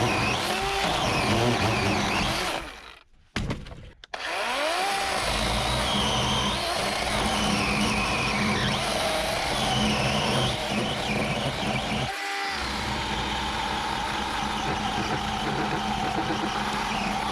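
DeWalt cordless electric chainsaw cutting through a dead tree trunk. The sound breaks off sharply twice, about three seconds in and near twelve seconds.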